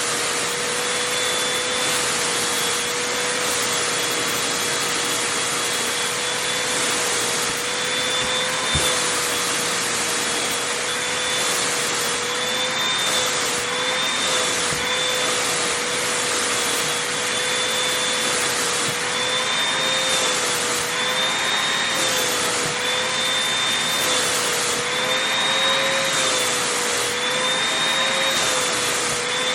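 Vacuum cleaner running steadily over fabric, a constant whine over a rushing hiss, its pitch wavering slightly in the second half as the nozzle moves over the material.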